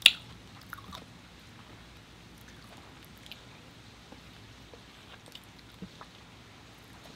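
Close-miked chewing and mouth sounds of a person eating, with one sharp, loud click right at the start and scattered soft clicks after it.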